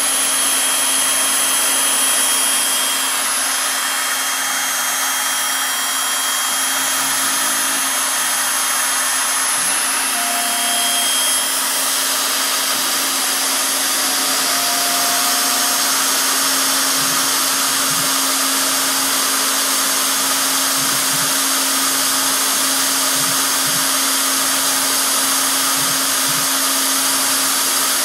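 CNC engraving machine running: the steady, high-pitched whir of its spindle motor, with short tones coming and going now and then.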